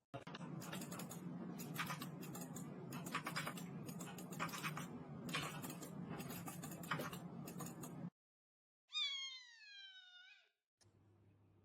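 Clicks and rustling over a low steady hum, cutting off abruptly about eight seconds in. A second later comes one long cat meow that falls in pitch.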